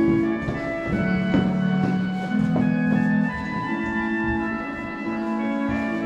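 Church organ playing slow, held chords that change every second or so.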